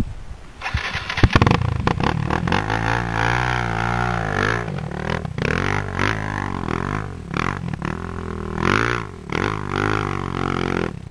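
Dirt bike engine revving hard under load as it climbs a steep dirt slope, its pitch rising and falling again and again as the throttle is worked, with a sharp knock about a second in.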